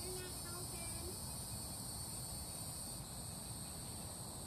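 Steady chorus of insects, a constant high-pitched buzzing that does not change.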